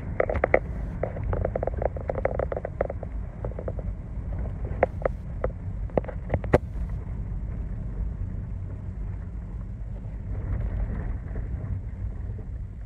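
Car driving, heard from inside the cabin: a steady low rumble of engine and road noise. Sharp irregular clicks and knocks come in the first few seconds and again around six seconds in.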